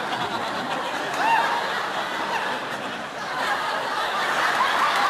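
Sitcom studio audience laughing: a dense, sustained crowd laugh with single voices rising above it.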